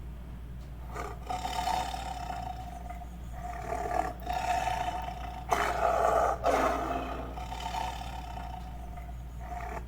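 A large animal roaring in a series of long calls that begin about a second in, are loudest around the middle, and stop just before the end.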